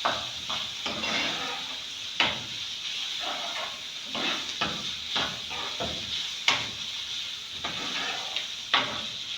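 Shredded chicken frying in oil in a non-stick pan: a steady sizzle, with a cooking spoon stirring and knocking sharply against the pan several times.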